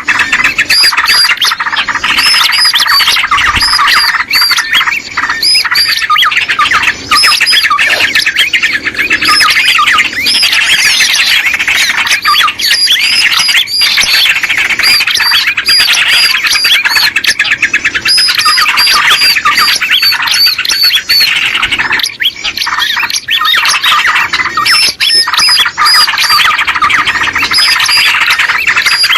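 Small birds chattering in a dense, loud, unbroken chorus of rapid, overlapping high calls: a bird-lure recording made to draw small birds in.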